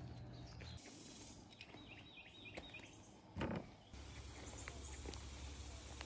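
Quiet outdoor riverside ambience with a low rumble. A bird gives a quick run of about six short chirps around two seconds in, and a brief thump comes about a second later, the loudest sound.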